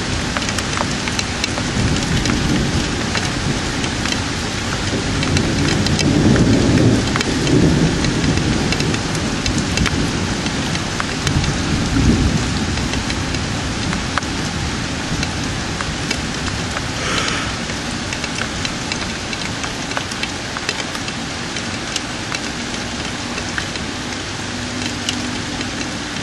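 Steady rain hissing and pattering, with thunder rolling low and swelling about five to eight seconds in and again around twelve seconds.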